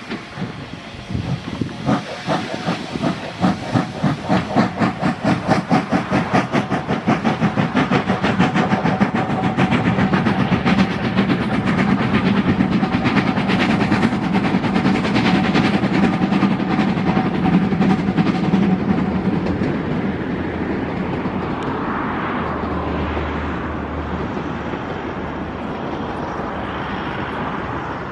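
Narrow-gauge steam locomotive 609.76 working hard past, its exhaust beats coming in a quick even rhythm over the rolling noise of the train. After about twenty seconds the beat blurs into a steadier rumble.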